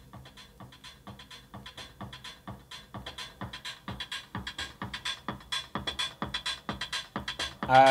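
Electronic dance music with a fast, even beat played unfiltered through a bare subwoofer driver from a small mono amplifier module, all frequencies coming through, highs included. It grows steadily louder.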